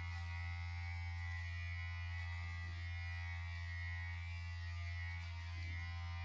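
Electric pet hair clipper of a vacuum grooming kit running, giving a steady, even buzz with a low hum. The kit's vacuum suction is not switched on, so only the clipper motor is running.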